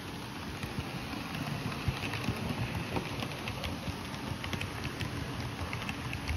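Model steam locomotive and coaches running on a model railway layout: a steady low rumble with many light, irregular clicks from the wheels on the track.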